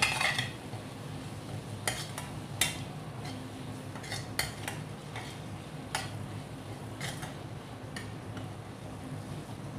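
A metal spoon stirring and scraping through potato and pointed-gourd sabzi in a stainless steel kadai, mixing in the dry spices. The spoon clinks against the pan at irregular moments, over a steady low hum.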